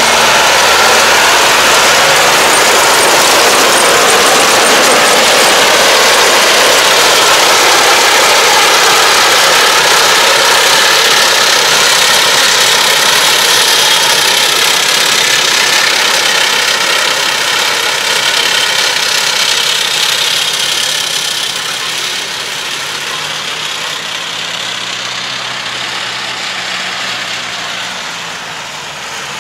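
Diesel tractor engine running with the round baler it tows working through rice straw, a loud, steady mechanical noise that fades gradually over the last third as the tractor pulls away.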